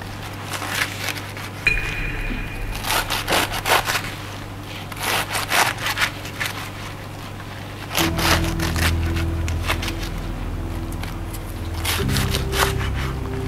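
Kitchen knife chopping cabbage on a cutting board in quick runs of strokes, several times, over soft background music with held chords that shift about 8 seconds in.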